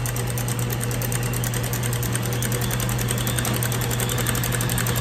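KitchenAid stand mixer running steadily, its wire whip beating heavy cream that is thickening toward peaks. A steady motor hum with a fast, even rattle.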